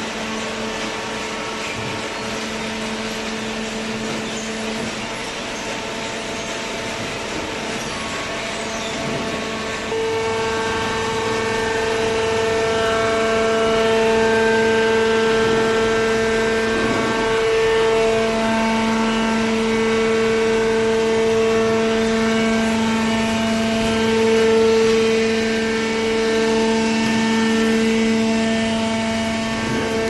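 Hydraulic power unit of a horizontal carton baler, its electric motor driving the hydraulic pump with a steady whine. About ten seconds in it gets louder and fuller, with a brief dip around seventeen seconds.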